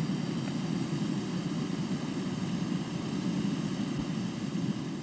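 Small gas stove burner running, its flame making a steady low rushing noise.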